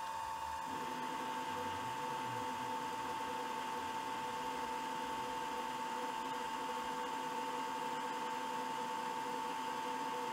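Metal lathe running while a long boring bar takes a finishing cut inside a cylinder: a steady machine hum with a high whine throughout, and lower tones joining in about a second in.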